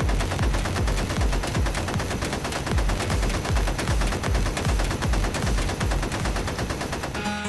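Rapid machine-gun fire sound effect, a fast unbroken stream of shots with deep thuds repeating beneath, which cuts off suddenly near the end.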